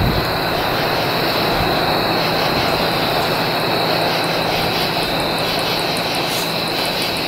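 New Jersey Transit diesel locomotive approaching, its engine running as a steady drone.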